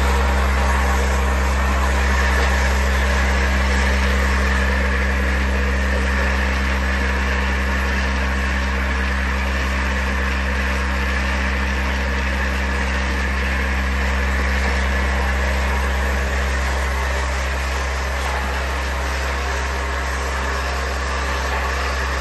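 Vibratory bowl feeder running: a steady low electromagnetic drive hum under a continuous rattle of white plastic tubular parts sliding and clattering along the bowl's spiral track.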